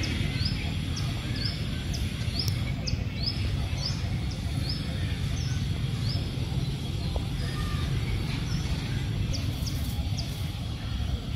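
Small bird repeating short, high, rising chirps about twice a second, thinning out after the first half with a few more near the end, over a steady low outdoor rumble.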